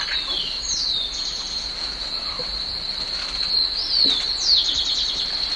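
Crickets trilling steadily on one high pitch, with a few short bird calls that slide downward over them.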